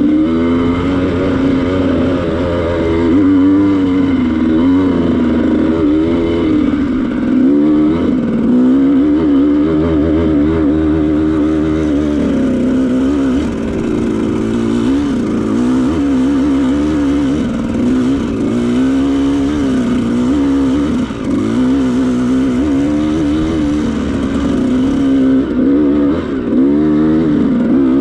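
Dirt bike engine running under load on a rocky trail, its pitch rising and falling constantly as the throttle is opened and eased.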